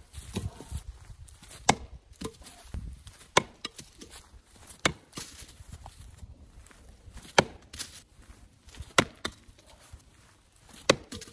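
Axe chopping wood: about six sharp chops, spaced a second and a half to two and a half seconds apart.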